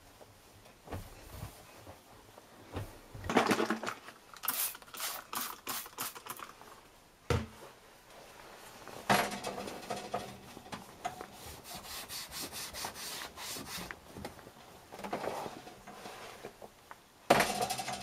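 A cloth wiping and rubbing over the front panel of a front-loading washing machine in irregular bursts of scratchy rustling, with a few knocks against the machine, a sharp one about seven seconds in and a loud one near the end.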